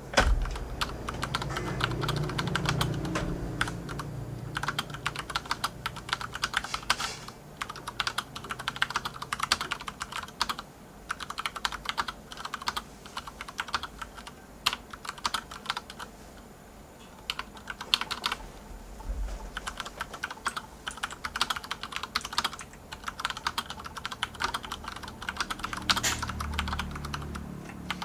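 Continuous fast typing on an Akko 9009 Retro mechanical keyboard with Cherry MX Brown tactile switches: dense, irregular key clacks with a few louder strokes. A low rumble sits underneath in the first few seconds and again near the end.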